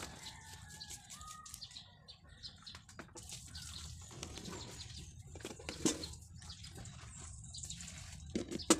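Birds chirping in the background, with a few sharp knocks from handling things on the table, the loudest about six seconds in and a cluster just before the end.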